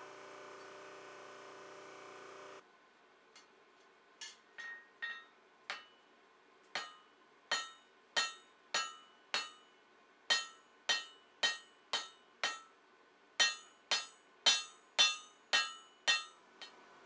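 Forging press motor running with a steady drone that cuts off abruptly, then a hand hammer striking red-hot 4140 tool steel on the anvil: about twenty ringing blows, roughly two a second, with a short pause partway through.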